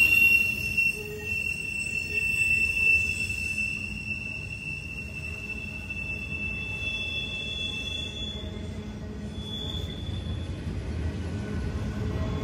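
Freight train of empty intermodal well cars rolling past, its wheels giving a steady high-pitched squeal over a low rumble. The squeal fades out about eight seconds in, and two brief, higher squeals follow.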